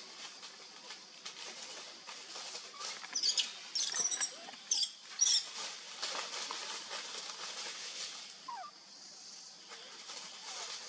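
A baby monkey giving several short, very high-pitched squeals in quick succession about three to five seconds in, over a steady high hiss of insects.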